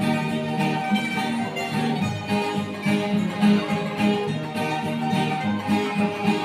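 Music led by a plucked acoustic guitar, with steady rhythmic picking and held notes throughout.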